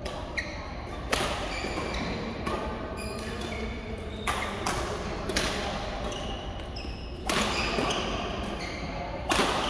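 Badminton rackets striking the shuttlecock in a rally: about six sharp cracks, one every second or two, echoing in a large hall, with sneakers squeaking on the court floor between the hits.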